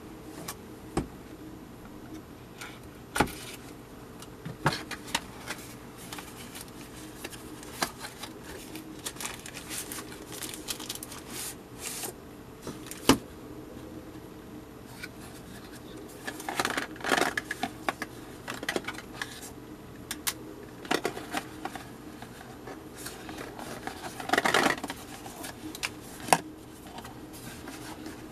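Cardboard packaging handled with cotton-gloved hands: scattered taps and clicks of the card and short scraping rustles as flaps are opened and inner card pieces are drawn out. Two longer rustles come about two-thirds of the way in and near the end, over a faint steady hum.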